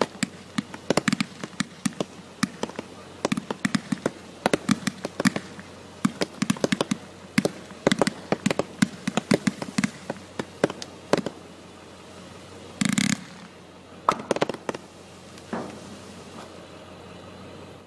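Flower King 100-shot Multi Color Blooming Flower firework cake firing, a very quiet cake: a fast, irregular string of sharp pops several a second. After about eleven seconds the shots thin out to a few last pops, then it ends.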